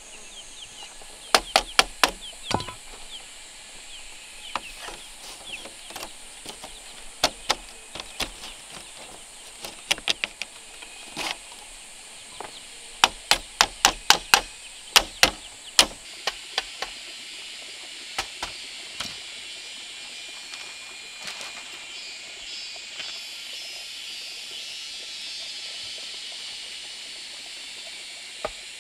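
Irregular sharp knocks, some in quick runs of several strikes, over a steady high hiss that swells in the second half.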